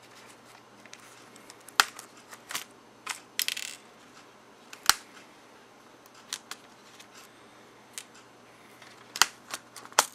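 Irregular sharp clicks and taps of small metal screws and a screwdriver as the screws along the top edge of a Dell Latitude D430 laptop keyboard are taken out, then plastic clicks as the keyboard is pried up near the end. A faint steady low hum runs underneath.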